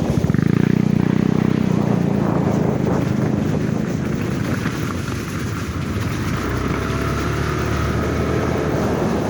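An engine running steadily under way, a little louder for the first couple of seconds, with wind noise on the microphone.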